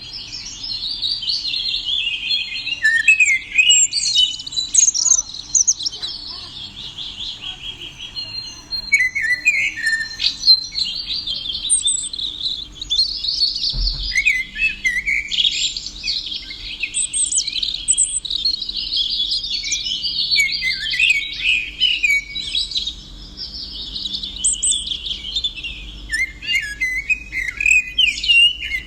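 Small songbird singing continuously, a dense run of chirps and rapid trills, with a single low thump about 14 seconds in.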